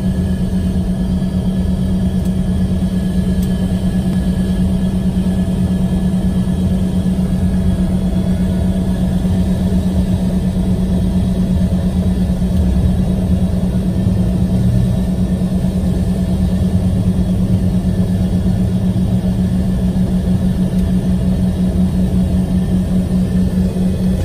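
Jet engines of an Embraer ERJ145, Rolls-Royce AE3007 turbofans, heard from inside the cabin while taxiing onto the runway. They give a steady, loud, low drone with a constant hum.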